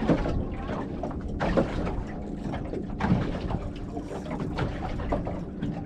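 Wind buffeting the microphone and water lapping against a small boat's hull, with a few light knocks.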